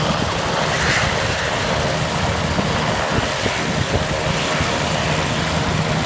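Helicopter running close by: a steady, loud rush of rotor wash with a low engine hum underneath.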